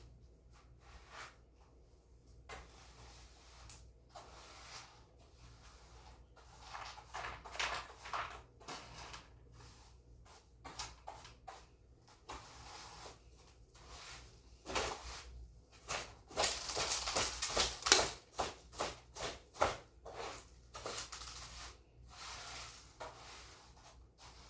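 Irregular brushing and swishing strokes of a floor being swept, with a few light knocks. A quick run of louder strokes comes about two-thirds of the way through.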